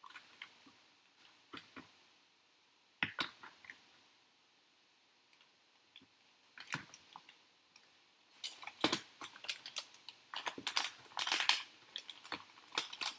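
Hands handling parts in a clear plastic storage box: a few scattered plastic clicks and knocks, then from about eight seconds in a dense run of crinkling and crackling as a plastic parts bag is handled.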